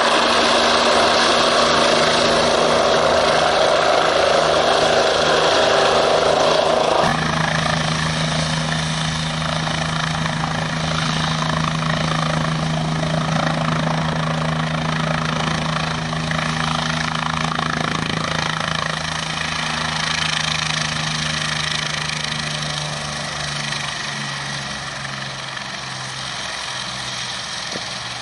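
Bell 429 GlobalRanger twin-turbine helicopter: rotor and engine noise as it flies low and close, cutting about seven seconds in to the helicopter on the ground with its main rotor turning and a steady low engine hum. The sound slowly gets quieter over the last several seconds.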